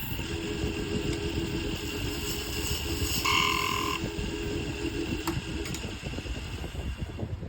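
Wood lathe running with a steady hum, a brief higher whine rising over it about three seconds in.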